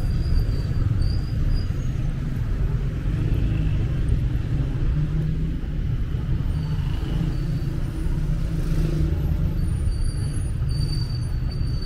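City street traffic: a steady low rumble of cars running along the road beside the sidewalk.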